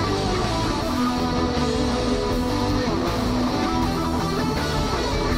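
Instrumental outro music led by guitar, playing steadily.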